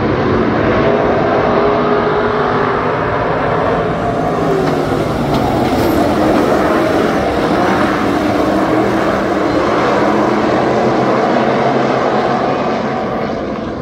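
A field of USRA stock cars racing, many V8 engines running together at high revs, their pitch rising and falling as the cars go through the turns and past.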